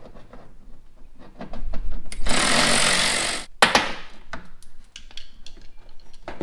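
A small power tool runs for just over a second, about two seconds in, taking out a mud guard bolt. Around it come scattered clicks and knocks of plastic push pins being pried out of a 3rd-gen Toyota 4Runner's rear mud guard with a hook pick.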